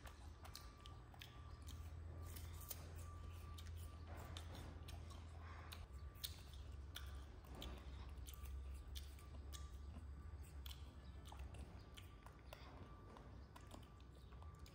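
Pet monkey eating fruit: faint, scattered smacking and clicking of chewing over a steady low hum.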